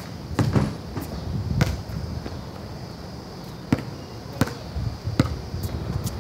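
Multicoloured rubber basketball bouncing on a concrete driveway several times, each bounce a sharp knock with a dull thud under it, at uneven intervals.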